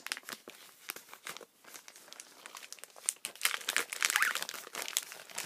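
Packaging being crinkled and handled as it is opened, a run of small irregular crackles that grows busier in the second half.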